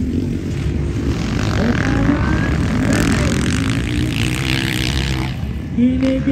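Motocross dirt bike engines running on the track, their pitch rising and falling as they rev.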